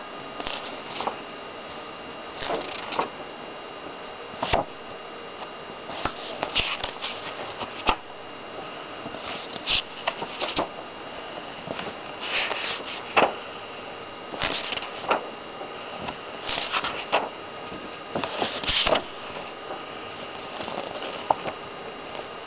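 Comic-magazine pages being turned and handled, rustling in short bursts every second or so, with a few sharp clicks. A faint steady high whine runs underneath.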